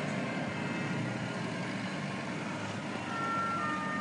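Steady low rumble of an idling fire engine over general street noise. About three seconds in, a few steady high-pitched tones begin and hold.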